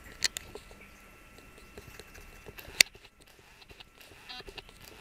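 Sparse small clicks and ticks over a faint steady hum, with one sharper click a little before three seconds in.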